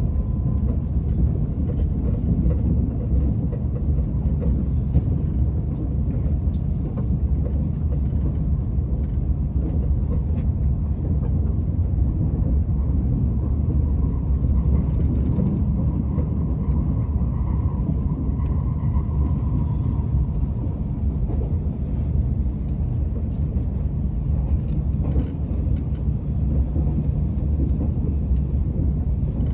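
Steady running rumble of a TGV high-speed train in motion, heard from inside the passenger car.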